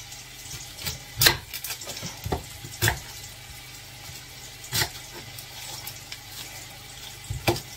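Chopped onion sizzling in hot oil in a frying pan as it is sautéed and stirred, a steady sizzle broken by about six sharp knocks of a utensil.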